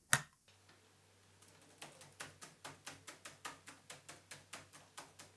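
A single sharp click just after the start, then fast typing on a laptop keyboard: an even run of keystrokes at about five a second, beginning about a second and a half in.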